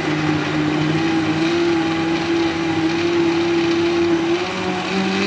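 Countertop blender motor running at speed, blending a full jug of milk and chopped fruit: a steady whirring hum that steps up in pitch near the end.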